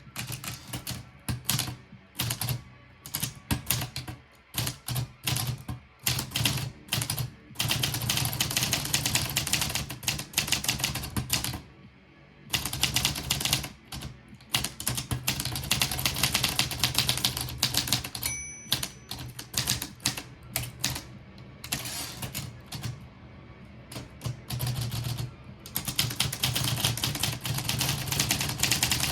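Portable manual typewriter being typed on in quick runs of key strikes separated by short pauses; the margin bell rings once about two-thirds of the way through. Background music plays underneath.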